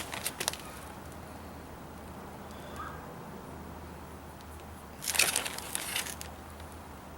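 Crinkling and rustling of a powdered-sugar package being handled and shaken as the sugar is sprinkled, in brief bursts just after the start and again about five seconds in, over a low steady hum.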